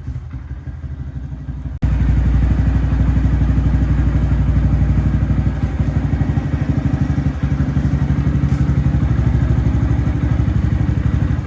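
Honda Grom's 125 cc single-cylinder engine with an aftermarket Yoshimura exhaust idling steadily, a fast even putter. About two seconds in it abruptly becomes louder and holds steady.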